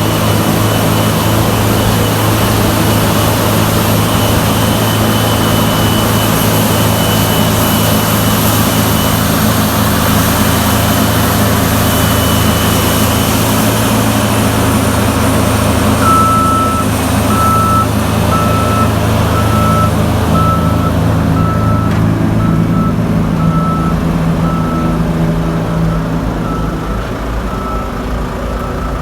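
Heavy diesel farm machinery running steadily under load, with a reversing alarm starting about halfway through and beeping at one pitch, a little less than a second apart.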